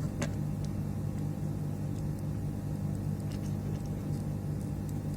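Steady low hum, like a small motor or fan running, with a few faint light ticks.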